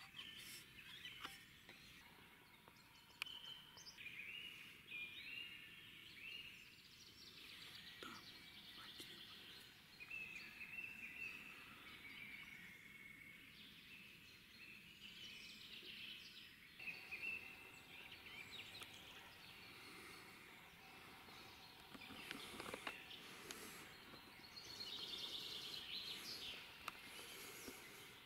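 Faint songbird song from several small birds, warbling and chirping, with a few soft clicks.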